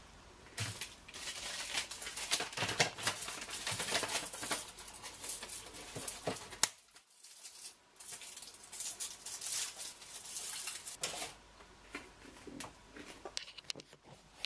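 A chocolate bar's paper-and-foil wrapper being handled, crinkling and tearing in two long spells with a short pause between them, then a few scattered rustles and clicks.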